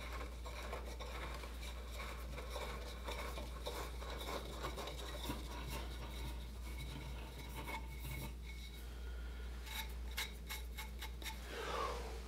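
A solid mahogany table leg being twisted off its threaded mount, wood rubbing and scraping against the mounting block, with a run of small clicks near the end.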